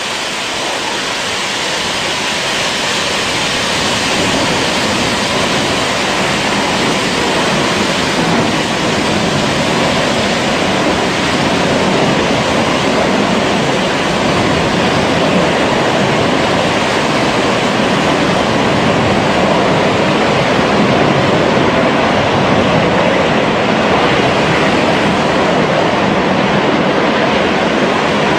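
Steady roar of a drilling rig blowout: gas and drilling mud jetting uncontrolled from the well through the rig floor. It builds a little over the first few seconds, then holds.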